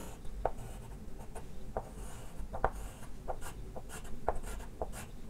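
Chalk lettering on a chalkboard: irregular short taps and scrapes, about two or three a second, as block capitals are written.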